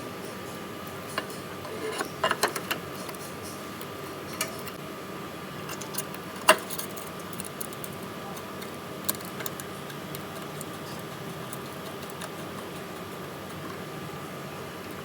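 Scattered sharp metallic clicks and clinks of hand tools and parts being handled, with a quick cluster about two seconds in and the loudest single click about six and a half seconds in, over a steady faint hum.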